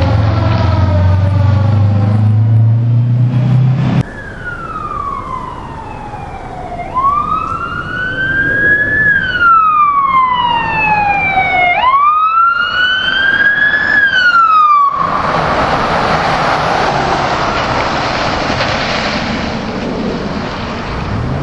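Emergency vehicle sirens on responding fire apparatus. First a siren falls in pitch over a heavy engine rumble. After an abrupt break, a siren wails in slow rising and falling sweeps, and for the last several seconds there is a loud steady noise with no clear pitch.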